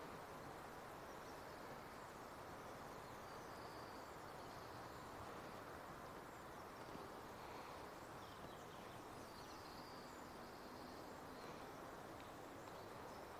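Faint outdoor ambience: a steady low hiss with distant birds calling now and then.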